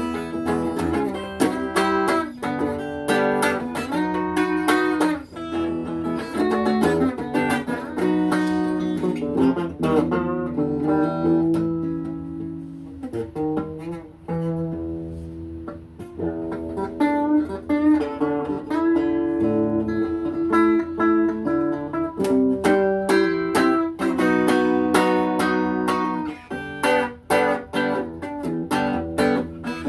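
Guitar music: a run of plucked notes, growing softer for a few seconds in the middle.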